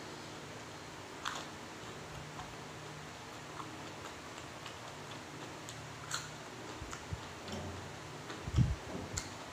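Close-up eating of a mouthful of raw round Thai eggplant with raw beef koi: a few small clicks of fingers and food, then heavier chewing thuds near the end. A steady low hum sits underneath.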